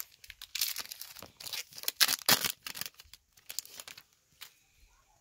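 Plastic-foil baseball card pack wrapper torn open and crinkled by hand, a dense run of crackling rustles that dies away over the last second or so.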